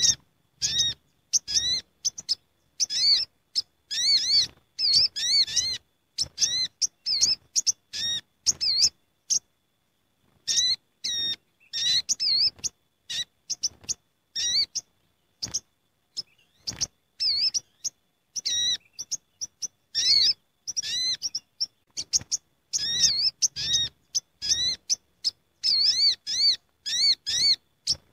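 Sogok ontong sunbirds calling: many short, sharp, high chirps in quick runs broken by brief pauses. It is the busy chatter of several birds gathered together, used as a lure call for catching the species.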